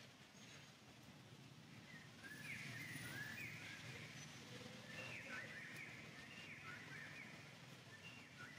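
Faint, high chirping animal calls: short sliding squeaks repeated in quick clusters, starting about two seconds in.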